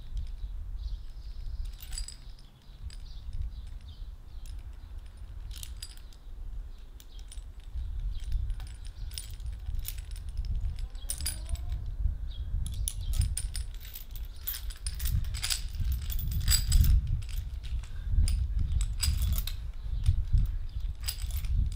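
Steel chain links clinking and rattling irregularly as the chain on a homemade stone kettlebell is handled and lengthened, over a steady low rumble.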